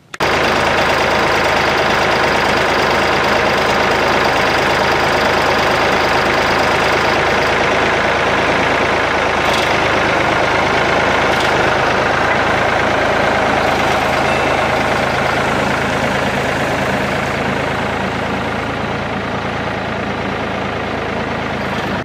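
Backhoe engine running steadily, a little quieter in the last few seconds.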